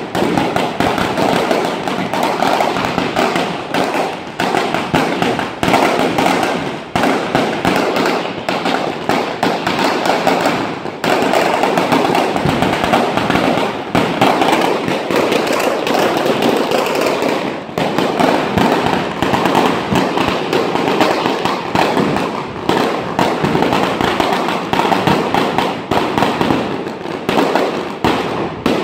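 Firecrackers going off nonstop, a rapid unbroken rattle of sharp bangs.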